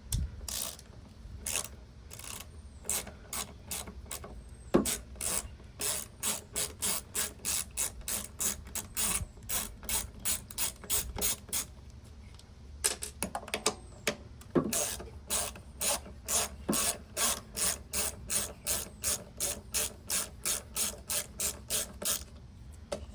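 Ratchet wrench clicking in steady runs, about three strokes a second with a short break midway, while backing out the small 7 mm bolts in front of the carburetor.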